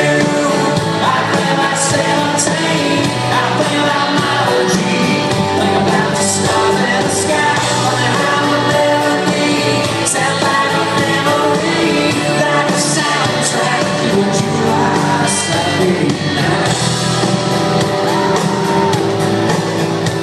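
Live country music: a full band with drums and cymbals playing under a male lead vocal, loud and continuous.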